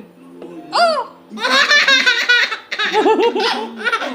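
A baby laughing: a high squeal about a second in, then runs of quick giggles.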